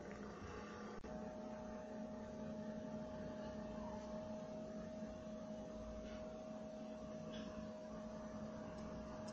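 Steady electrical hum with a low tone, joined by a higher steady tone after a faint click about a second in.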